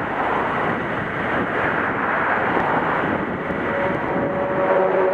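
Steady rush of wind and breaking surf. About three and a half seconds in, a vehicle engine's steady hum joins it.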